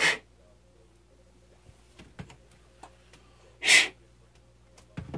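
Crosman F4 break-barrel air rifle being fired: a short, sharp burst right at the start and a louder, slightly longer one nearly four seconds in, with faint handling clicks between them.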